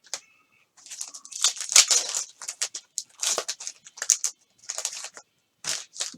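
A trading card pack's wrapper being torn open and crinkled, heard as a run of short, crackling rustles.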